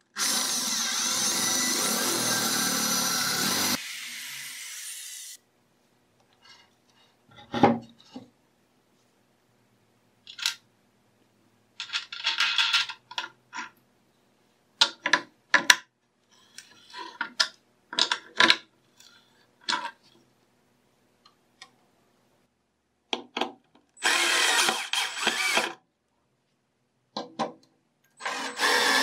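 An electric drill bores into a pine board for about four seconds, then runs on more quietly for another second and a half before stopping. Short clicks and knocks follow. Near the end the drill runs in two more short bursts, the last one driving a screw through a thin metal strap.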